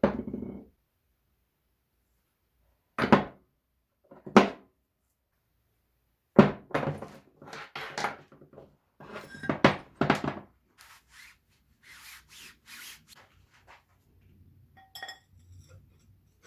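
Parts of a small farm machine's gearbox being handled during disassembly: single thunks, then a quick run of knocks and clanks, then fainter scraping and a few light clinks.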